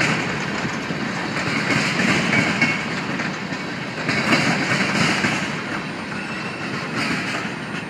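Freight train of coal hopper cars rolling along the track, steel wheels clicking over the rail joints with a steady rumble. It grows a little fainter toward the end as the train moves off.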